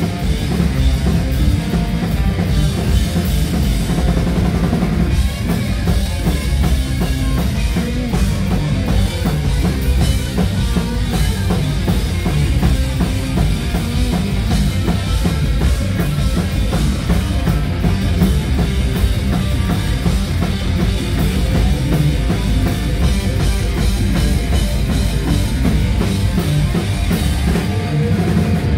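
A heavy rock band playing live, with a drum kit (bass drum and snare hits) driving under electric guitar and bass guitar. It is loud and steady throughout.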